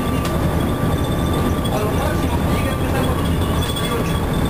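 Cabin sound of a 1996 Nova Bus Classic transit bus under way: its Detroit Diesel Series 50 inline four-cylinder diesel runs with a steady low rumble of engine and road noise, plus a faint steady high whine.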